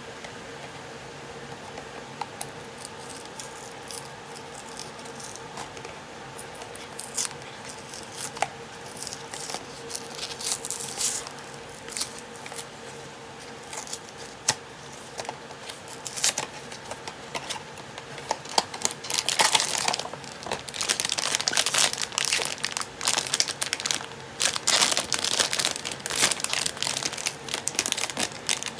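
A cardboard blind box being picked and torn open by hand. At first there are only scattered light scratches and small tears. From about two-thirds of the way in comes dense crinkling and tearing as the foil bag inside is handled.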